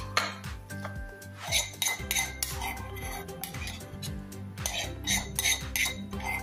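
Knife and cutlery clicking and scraping against a ceramic plate as cooked teriyaki chicken thighs are cut, a quick run of sharp clicks in two clusters, over background music.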